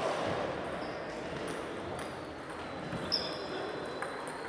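Table tennis balls clicking on bats and tables from several tables in play, over the murmur of a large hall. One sharper ball strike with a brief high ring stands out about three seconds in.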